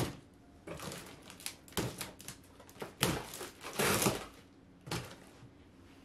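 A taped cardboard box being opened and unpacked: tape pulled off, cardboard flaps handled and crumpled kraft packing paper rustling and crackling in irregular bursts, loudest about three to four seconds in.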